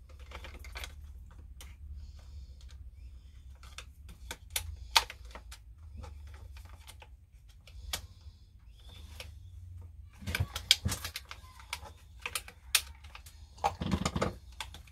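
Irregular small clicks, taps and clinks of hand tools and parts as a Stihl 026 chainsaw is worked on by hand. A busier run of louder clicks comes about two-thirds of the way in and again near the end, over a low steady hum.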